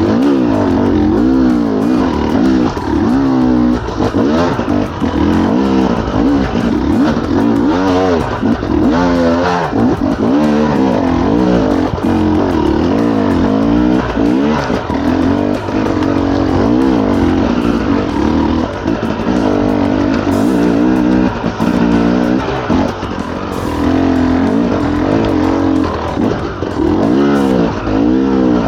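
Enduro dirt bike engine revving hard and unevenly, its pitch swinging up and down over and over as the throttle is worked.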